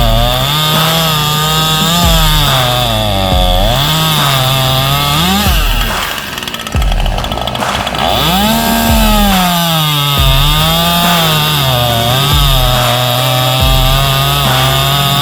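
Two-stroke chainsaw running at high revs, its engine pitch dropping and climbing back again and again, about every one to two seconds.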